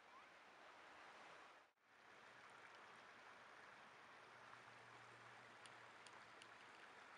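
Faint, steady hiss of flowing river water, dropping out for a moment a little under two seconds in.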